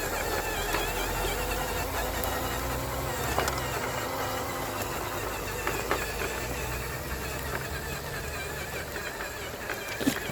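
JD Models Desert Runner RC truck driving off-road, its motor whining up and down in pitch as the throttle changes, with a few sharp clicks.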